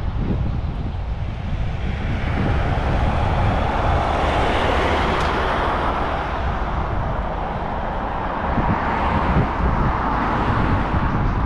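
Wind buffeting a GoPro's microphone while riding a road bike, a steady low rumble. About two seconds in, a broad road hiss swells up and stays loud, peaking twice before easing near the end.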